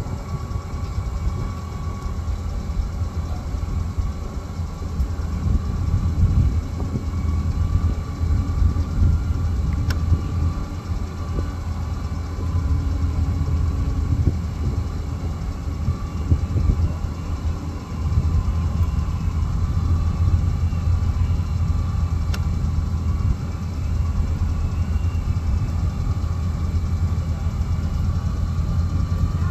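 A steady low rumble that swells and eases a little, with a faint thin hum above it.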